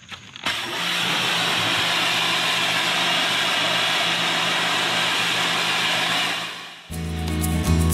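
Pressure washer running, its jet spraying grime off a boat hull, a steady spray noise over a low motor hum. It starts about half a second in and stops near the end, where guitar music comes in.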